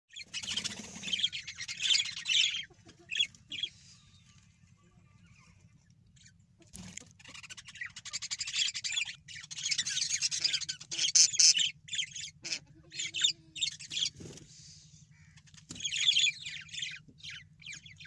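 Budgerigars chirping and chattering in quick, scratchy bursts that come in three spells with short lulls between.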